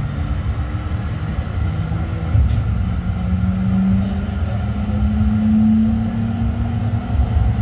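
Tram running with a steady low rumble, a motor hum rising slightly in pitch and growing louder from about three seconds in, and one sharp click about halfway through.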